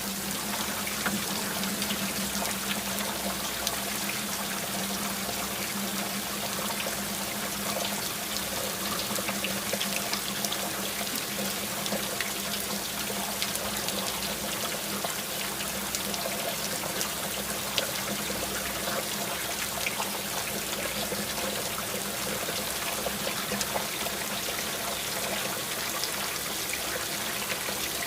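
Water trickling and splashing steadily, with many small drips. A faint low hum sounds under it during the first few seconds.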